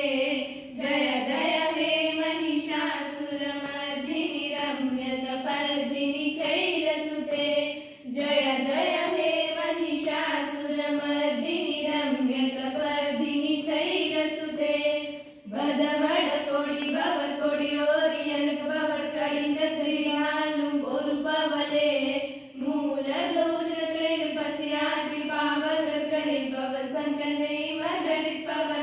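Girls singing a song together in unison into one handheld microphone, with no instruments heard. Long held phrases, each breaking off for a short breath about every seven seconds.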